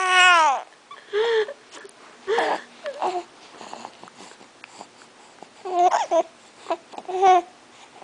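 Seven-week-old baby fussing in short cooing cries, about six of them. The first and longest falls in pitch, and the rest are shorter and spaced a second or more apart.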